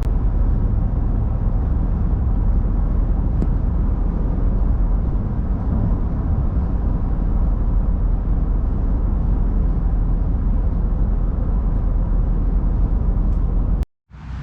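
Storm wind from a hurricane buffeting the microphone, a loud steady low rumble. Near the end it cuts off abruptly, then returns as a quieter rush of wind.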